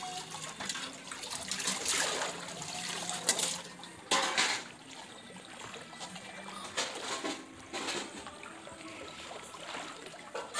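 Water splashing and trickling as stainless steel plates are dipped and rinsed in shallow floodwater. It is busiest in the first half, with a sharp splash about four seconds in, then quieter, scattered splashes.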